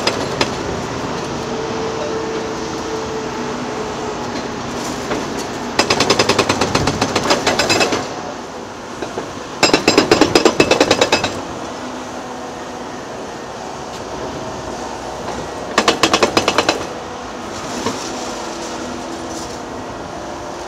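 Construction machinery: a diesel engine runs steadily, broken three times by a burst of rapid mechanical hammering, about ten blows a second, each burst lasting one to two seconds.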